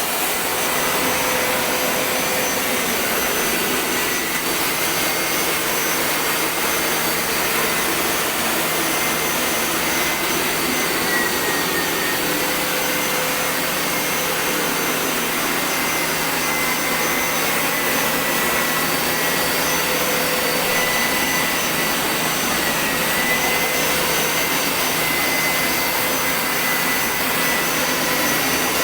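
Carpet-washing machine's suction motor running steadily: an even rushing noise with a high whine that dips slightly in pitch now and then.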